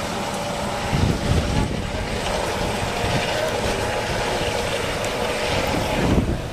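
Helicopter of the Dauphin type with a ducted tail fan flying by, a steady whine over a low, uneven rotor beat. It swells about a second in and again near the end.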